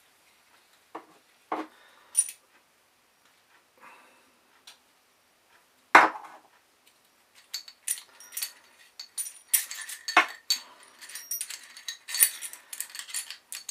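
Metal parts of a bearing press tool clinking and rattling as they are handled: a few separate knocks, a sharp knock about six seconds in, then a busy run of clinks and rattles in the second half.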